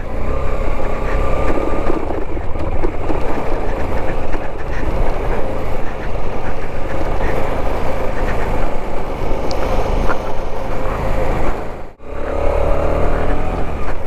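KTM motorcycle engine running steadily on the move, under a heavy low rumble. The sound drops out for an instant near the end.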